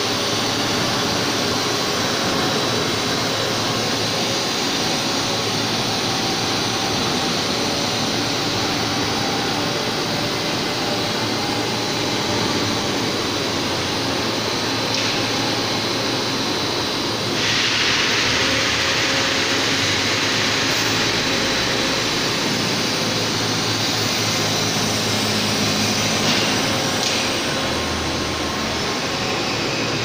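ABS/HIPS sheet extrusion line running: a steady, loud machine hum and hiss with a few thin steady whining tones. About seventeen seconds in, a higher hiss comes in and stays.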